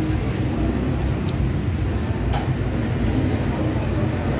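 Steady low rumble of street traffic, with a couple of faint clicks.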